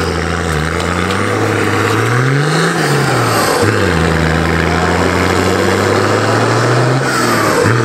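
Nissan Patrol GQ's TD42 straight-six diesel pulling under load while driving over rough ground. The note rises to a peak and drops off about three seconds in, holds steady for a few seconds, then falls away near the end.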